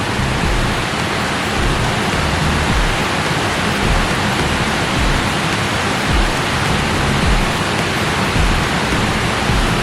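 Water pouring over a dam spillway: a loud, steady rush of falling water, with irregular low rumbles underneath.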